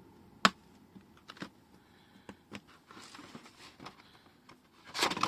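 Handling of crafting materials: paper, washi tape and hand tools. One sharp click comes about half a second in, then scattered light clicks and taps, and a louder rustling scrape near the end.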